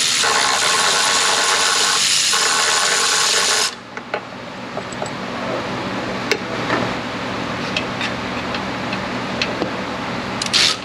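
Hand ratchet clicking rapidly on an exhaust manifold bolt, in runs broken twice, stopping about four seconds in. Scattered light metallic clicks and taps of the socket and tools follow.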